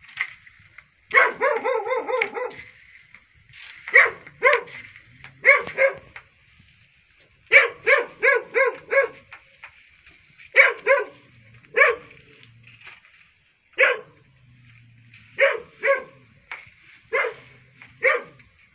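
Dog barking repeatedly in short clusters of high yaps, with a fast run of about eight barks about a second in.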